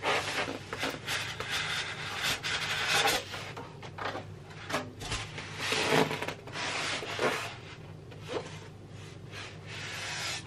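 Cardboard packaging and a soft protective wrap rubbing and scraping as a boxed iMac is handled and worked out of its box, with scattered light knocks and rustles.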